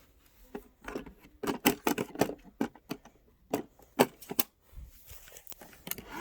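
Irregular plastic clicks and knocks as a Roomba e5's dust bin and body are handled, with the bin being snapped back into the robot.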